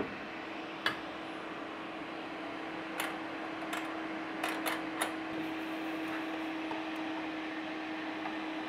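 HYSapienta air fryer oven's fan running with a steady hum, its cooking cycle ended. Several light metal clinks sound over the first few seconds as the wire removal tool hooks onto the rotisserie kebab cage.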